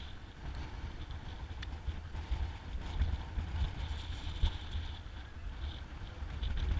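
Wind buffeting the ATV-mounted camera's microphone in an uneven low rumble, over the quad's engine running at low speed.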